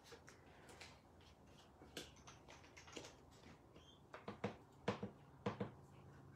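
Light scattered taps and clicks of a rubber stamp and card being handled while lining up a stamp, with a cluster of sharper taps about four to six seconds in, over a faint low hum.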